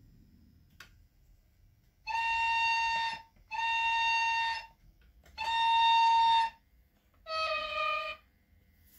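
Horn from an HO model ETR 300 Settebello's ESU LokSound V4.0 sound decoder, played through the model's small loudspeaker: three blasts of about a second each at one pitch, then a fourth, lower and shorter.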